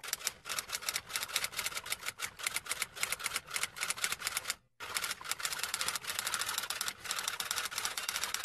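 Typewriter sound effect: rapid key clicks, several a second, with one short break about halfway through.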